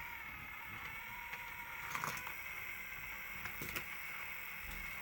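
A few faint clicks and knocks from a plastic toy car playset being handled, about two seconds in and again near four seconds, over a steady low hum.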